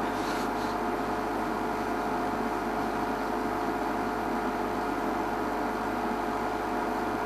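Safari game-drive vehicle's engine idling: a steady hum with a constant whine over it.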